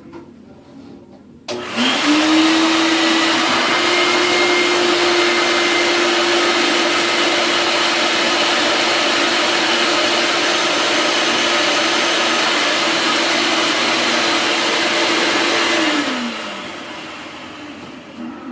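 Shop vacuum switched on about a second and a half in, its motor rising to speed and then running steadily, sucking a clog of hair and debris out of a drain through a hose sealed over it with a cloth. It is switched off near the end and the motor winds down.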